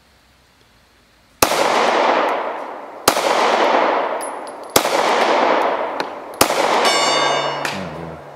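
SCCY CPX-2 9mm pistol fired four times, starting about a second and a half in, the shots about a second and a half apart, each followed by a long echo. After the last shot a distant steel gong rings briefly as it is hit.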